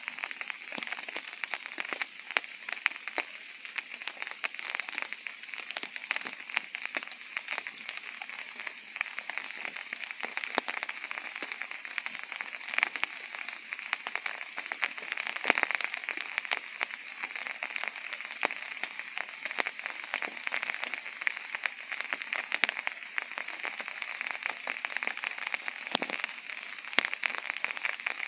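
Rain falling on a tent's fabric, heard from inside: a dense, steady patter of many small drop impacts.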